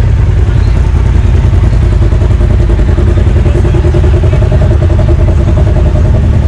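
A motor vehicle's engine running loudly and steadily, with a low, rapid pulsing.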